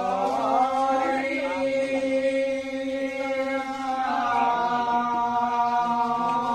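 A husori troupe of men chanting together in long held notes that shift slowly in pitch, with no drum yet.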